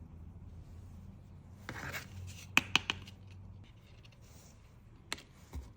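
Hands handling cosmetics packaging: a brief rustle about two seconds in, then three quick sharp clicks, and one more click near the end.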